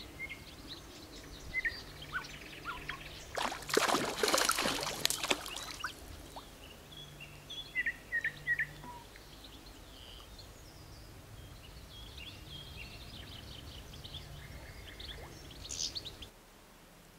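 Small birds chirping with short, scattered calls over steady outdoor background noise, with a loud crackling burst lasting about two seconds near the four-second mark. The sound cuts off suddenly near the end.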